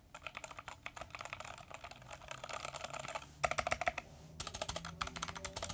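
Fast typing on a VortexSeries VX5 61-key mechanical keyboard: a quick, dense run of key clicks with a short pause about four seconds in.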